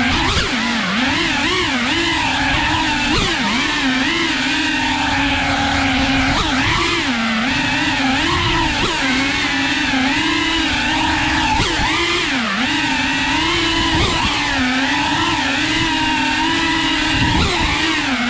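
Small FPV quadcopter's brushless motors and propellers whirring loudly, the pitch rising and dipping constantly as the throttle changes through quick manoeuvres.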